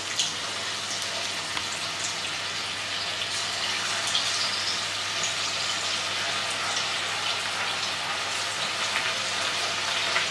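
Batter-coated chicken pieces deep-frying in hot oil: a steady sizzle with many fine crackles and pops.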